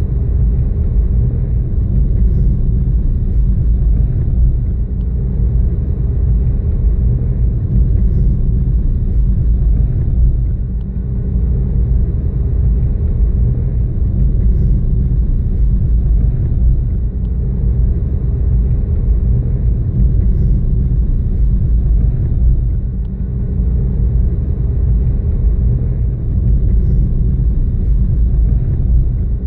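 Car driving, heard from inside the cabin: a steady low rumble of engine and tyres on asphalt, with small dips in level now and then.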